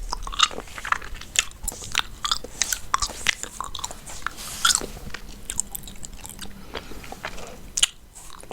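Close-miked chewing gum being chewed, with dense, irregular mouth clicks.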